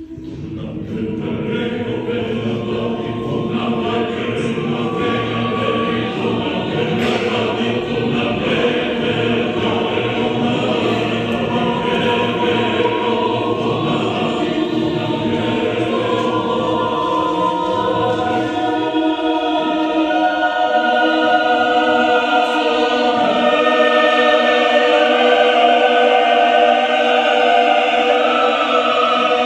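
Mixed choir singing unaccompanied in a contemporary choral piece, sustained dense chords in Slovene, swelling gradually louder. About two-thirds of the way through, the low voices drop out and the higher voices hold on.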